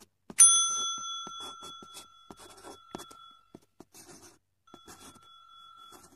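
Intro sound effects: a bright bell ding that starts sharply and rings out over about three seconds, with a second, fainter ring near the end, over quick scratching strokes like a marker drawing on paper.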